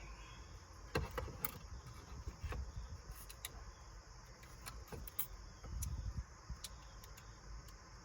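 Scattered small clicks and scrapes of hands working a ribbon cable into the connector of a car touch-screen head unit, the sharpest click about a second in. Crickets chirr steadily in the background.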